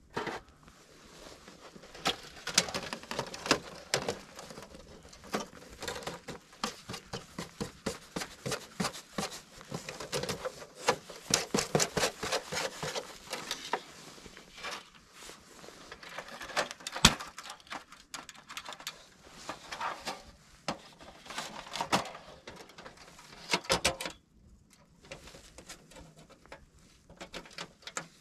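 Metal clinks, taps and clatter of a folding metal wood stove being unfolded and assembled by hand, its panels and legs knocking and clicking into place. One sharp knock stands out a little past halfway, and the handling grows sparser near the end.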